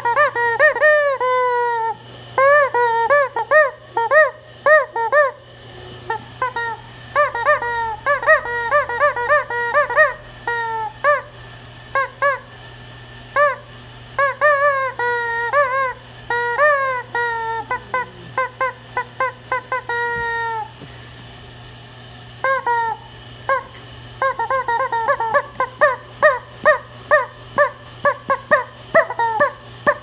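Yellow rubber chicken squeeze toy squawking again and again as it is squeezed, each squawk rising and falling in pitch. Mostly quick runs of short squawks with a few longer drawn-out ones, a brief pause a little past the middle, and a fast, even run of squawks near the end.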